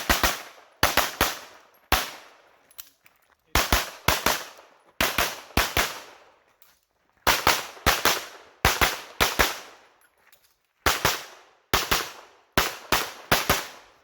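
Pistol fired rapidly during a USPSA stage: quick pairs and strings of shots with pauses of about a second between groups, each shot cracking and echoing briefly.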